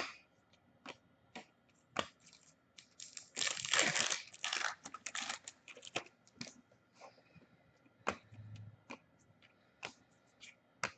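A hockey card pack's wrapper being torn open and crinkled, loudest for about two seconds near the middle, with scattered light clicks and taps of cards being handled.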